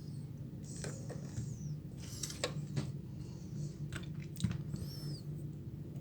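Small metal tools clicking and scraping on a phone circuit board while a jumper is put across a damaged resistor, with a brief high squeak about five seconds in, over a steady low electrical hum.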